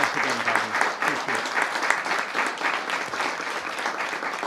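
Audience applauding: many people clapping steadily and densely.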